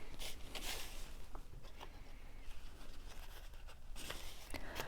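Faint rustling of cardstock pieces being handled and pressed together, with a few light taps.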